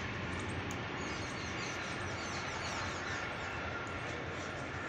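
Motorcycle engine idling steadily, with birds chirping high above it.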